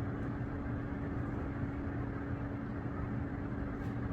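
Steady machine hum with a constant low drone, unchanging throughout.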